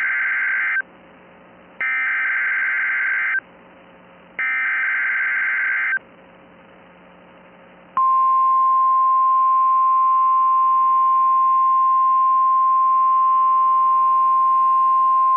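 Emergency Alert System header on NOAA Weather Radio: the buzzy, warbling SAME digital data bursts, the end of one and then two more, each about a second and a half long with short gaps between. About eight seconds in, the loud, steady 1050 Hz warning alarm tone begins, announcing that a warning, here a snow squall warning, is being issued.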